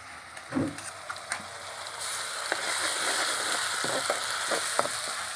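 Ginger-garlic paste and onions sizzling in hot oil in a kadai. The sizzle grows louder about two seconds in, and a steel ladle scrapes and clinks against the pan as it is stirred.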